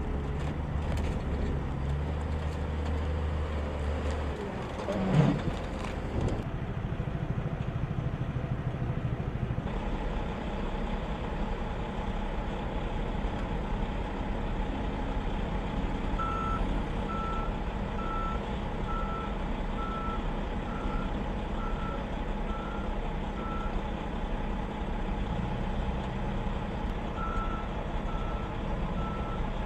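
Steady engine noise from a vehicle, with a brief loud whoosh about five seconds in. From the middle on, an electronic beep repeats a little faster than once a second, stops briefly and starts again near the end.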